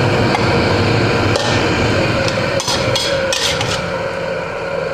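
Metal spatula scraping and knocking against a steel wok while stir-fried spinach is scooped out onto a plate, with a few sharp clanks about halfway through and shortly after, over a steady background hiss.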